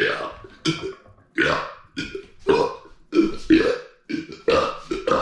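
A man burping loudly: a rapid run of about nine short belches, swallowed gas brought up after chugging carbonated soda.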